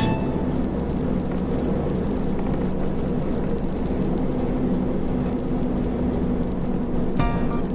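A car driving steadily along a road, with an even hum of engine and tyre noise. Music comes back in near the end.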